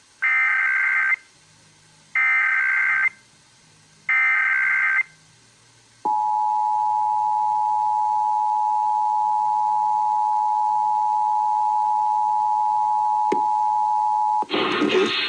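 Emergency Alert System header: three one-second bursts of warbling digital data tones, then the steady two-tone EAS attention signal held for about eight seconds, with a brief click near the end. The data bursts carry the coded alert header and the two-tone signal announces the alert, here a national test.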